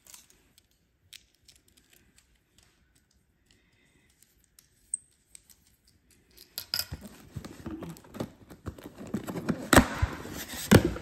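Cardboard packaging being handled: after a stretch of near quiet with a few faint clicks, rustling and scraping start about two-thirds of the way in, with two sharp knocks near the end.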